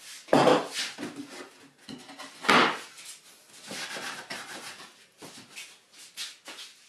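A cloth rubbing and wiping over a plywood box and its wooden slats in a run of short strokes, with two louder wooden knocks about half a second and two and a half seconds in.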